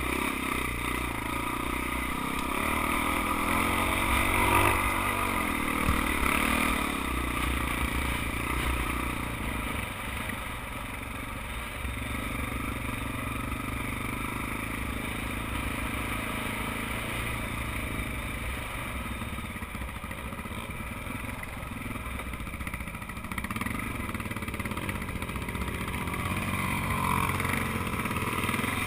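Suzuki dirt bike engine running under throttle while riding across soft sand, its note rising and falling as the rider works the throttle; somewhat louder in the first several seconds and again near the end.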